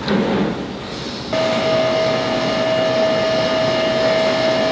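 Commercial blender motor starting abruptly about a second in and running with a steady high whine at one even pitch.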